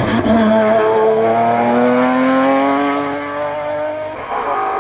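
BMW E46 M3 race car's engine accelerating hard as it passes, its pitch climbing steadily for about four seconds. It then breaks off abruptly into a quieter, more distant engine sound.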